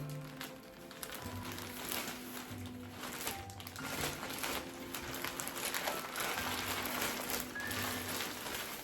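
Background music with held bass notes changing every second or so, with light clicks and rustling beneath it.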